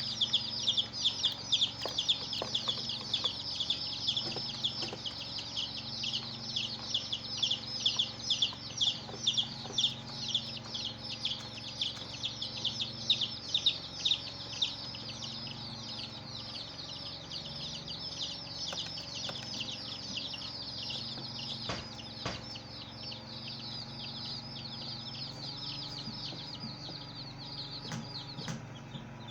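Baby chicks peeping: a dense, overlapping stream of high, falling peeps, several a second, louder in the first half and softer later, with a hen's low clucking beneath.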